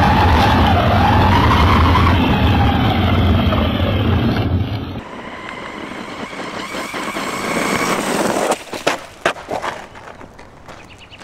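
Brushless electric motor of a 1/10-scale ZD Racing Thunder ZMT-10 RC monster truck, whining up and down in pitch with the throttle over a rumble of tyres on gravel. About halfway through the sound drops and turns quieter, and a few sharp knocks follow as the truck tumbles onto its side.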